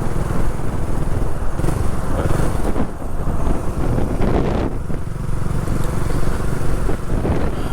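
Wind buffeting a motorcycle rider's microphone, a loud, steady rumbling rush mixed with the motorcycle's running engine while riding.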